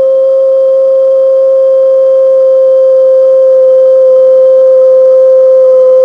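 Gas-fired Cotswold Heritage boiler sounding a loud, steady foghorn-like tone at one pitch with fainter overtones, growing slightly louder. It is the effect of the gas being turned up too high.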